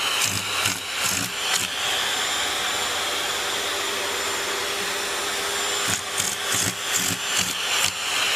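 A small motor running steadily with a whine through the middle, with rhythmic knocking or rubbing strokes, about two a second, near the start and again from about six seconds in.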